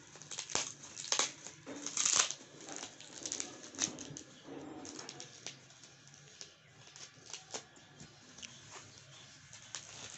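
White foam packing wrap around a small box rustling and crackling as it is handled and pulled open by hand, in irregular scrapes and crinkles that are busiest in the first few seconds.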